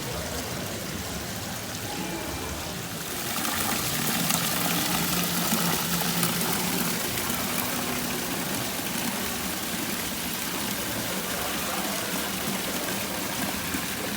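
Steady rushing noise with a faint low hum, growing louder about three seconds in.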